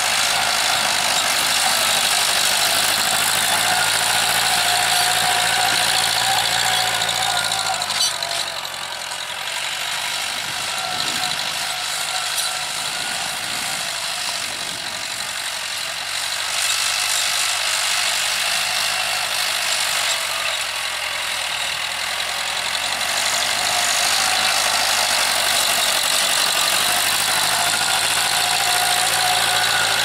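TAFE 5900 DI tractor's diesel engine running steadily while it pulls a tine cultivator through the soil, with a high whine over the engine note. The sound drops a little about eight seconds in and comes back up around sixteen seconds.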